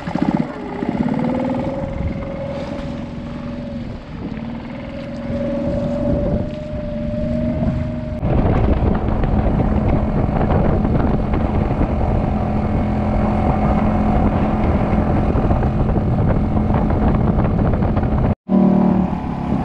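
Outboard motor pushing an inflatable boat across a lake at steady speed, with wind and water noise over its running hum. About eight seconds in it becomes louder and fuller, and it cuts out for a split second near the end.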